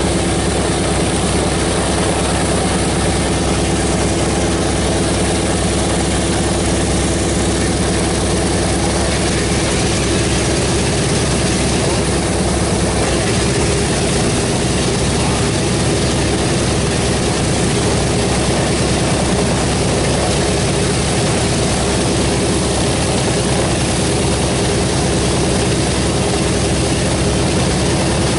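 Boeing B-17G Flying Fortress's Wright R-1820 Cyclone nine-cylinder radial engines running at low taxi power as the bomber moves across the ramp: a steady, loud drone with a fast chattering beat.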